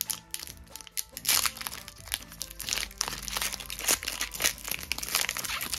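Foil wrapper of a Pokémon Battle Styles booster pack crinkling and tearing as it is pulled open by hand, in irregular rustles throughout. Soft background music plays underneath.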